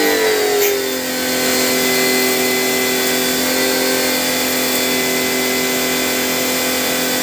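Electric 1,800-watt high-pressure washer running with the gun's trigger held, its motor and pump giving a steady whine over the hiss of the water jet spraying out.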